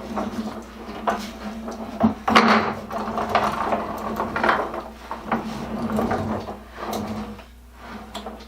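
Wooden tool chest being handled: irregular knocks, scrapes and rustles of wood, the loudest knocks about two seconds in, over a steady low hum.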